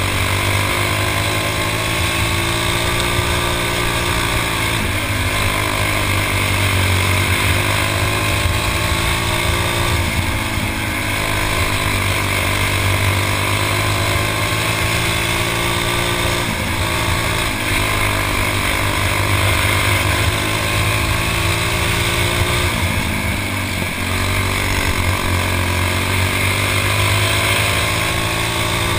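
Stock four-stroke kart engine under race load, heard from on board: its pitch climbs steadily for several seconds as the kart accelerates, then drops sharply as the driver lifts off, about every five to seven seconds, around the laps of a dirt track.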